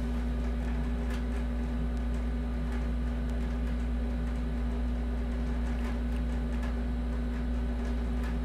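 Steady low hum of constant pitch, with a few faint ticks.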